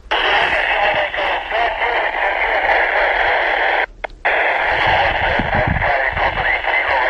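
Baofeng UV-5R handheld receiving the AO-91 amateur radio satellite's FM downlink on 145.960 MHz through its stock antenna: loud hiss of static with faint wavering traces of signal in it. The hiss cuts out briefly about four seconds in, and low rumbles come in near the end.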